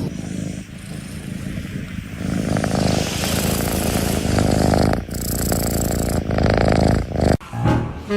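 A domestic cat purring, a dense pulsing rumble. Near the end it cuts off and a saxophone jazz tune starts.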